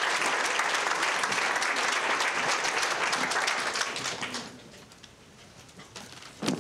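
Audience applauding, the clapping dying away about four seconds in. A single thump near the end.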